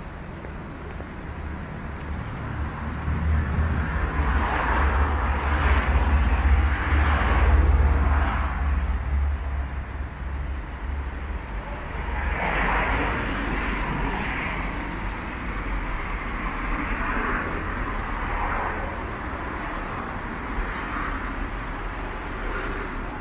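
Street traffic: a vehicle passes close, its engine rumble and tyre noise swelling to a peak about seven seconds in. A second, weaker pass-by follows about halfway through.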